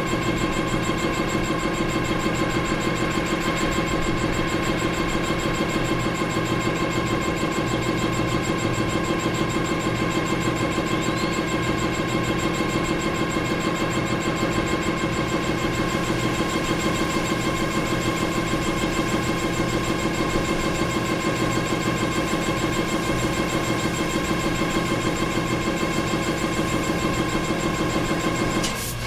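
Combustion-engine air compressor running steadily with a constant hum and whine, then shutting off abruptly near the end with a short burst of noise.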